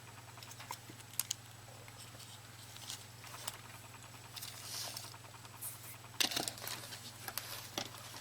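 Small scattered clicks and taps of plastic mouse parts being handled and fitted during reassembly of a cordless optical mouse, with a brief soft rub about five seconds in and a steady low electrical hum underneath.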